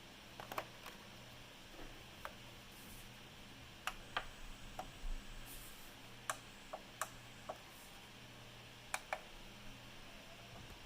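Fisher MT-729 linear-tracking turntable making about a dozen sharp, irregularly spaced clicks, some in quick pairs, over a faint steady low hum.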